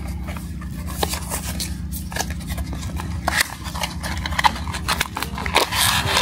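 Small cardboard blind box being handled and its flap pried open, with a string of small clicks and scrapes. Near the end, the foil bag inside crinkles as it is pulled out. A steady low hum runs underneath.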